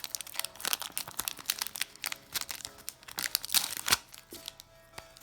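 A foil Pokémon booster pack wrapper crinkling and tearing as it is ripped open by hand. The irregular crackles are loudest about three to four seconds in.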